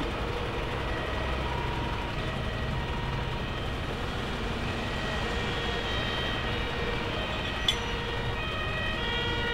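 Steady low rumble of idling emergency vehicles and traffic. From about six seconds in, an emergency vehicle's two-tone siren joins, alternating between two pitches and growing louder toward the end. A short sharp click comes near eight seconds in.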